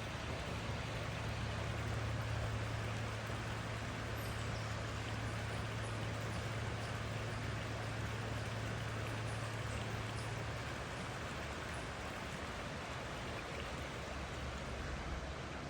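Steady rush of flowing water, with a low steady hum underneath that fades out about two-thirds of the way through.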